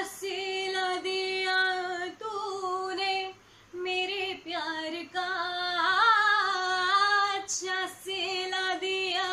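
A woman singing solo in long, held notes that bend slightly in pitch, with short pauses between phrases.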